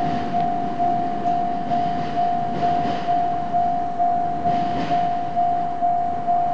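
Level crossing warning bell ringing steadily, about two strikes a second, each one a single tone that fades. Beneath it a train rolls past with a low rumble that thins out toward the end.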